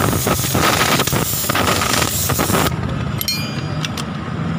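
Impact wrench hammering on a wheel lug nut of a light truck, a loud, fast rattling that stops suddenly a little over halfway through. A low steady hum carries on after it, with a brief high squeal.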